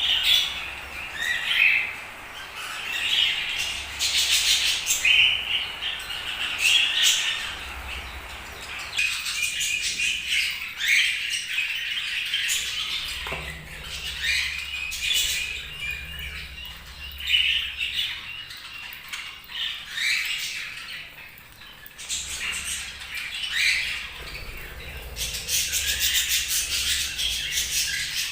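Budgerigars chirping and chattering, a busy run of short warbling and squawking calls with occasional sharp clicks.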